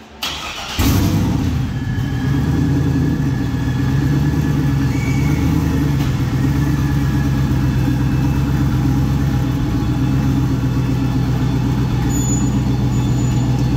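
Turbocharged LS V8 in an S10 drag truck starting up: a brief burst about a quarter second in, then it catches a little under a second in and runs at a steady, loud idle.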